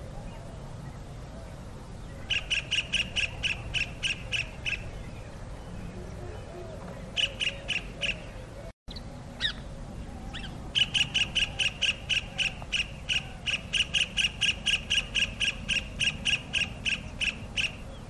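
Kingfisher calling in runs of sharp, evenly repeated notes, about four a second. A short run comes a couple of seconds in, a brief run follows midway, and a long run of about seven seconds comes in the second half.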